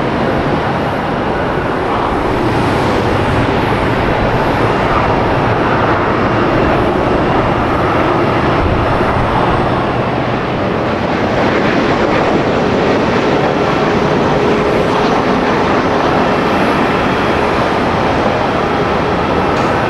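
Jet airliner engines running, a loud steady rush of noise with a faint whine coming in about halfway through.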